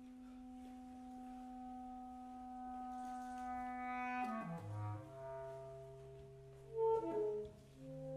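Saxophone and bass clarinet playing contemporary chamber music: a long held note that slowly swells, then slides down about four seconds in to a low held note while other sustained notes enter above it. A brief louder note sounds near the end.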